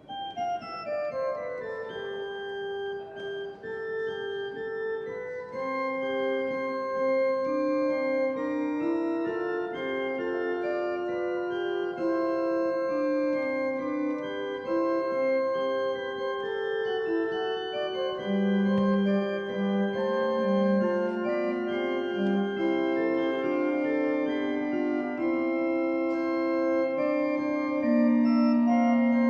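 Organ playing a slow piece in long held chords, with lower notes joining a little over halfway through.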